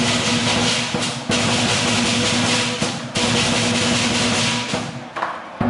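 Lion dance percussion band playing: a big drum beating rapidly under continuously clashing cymbals. The cymbal wash breaks off briefly about a second in and again about three seconds in, and falls away near the end.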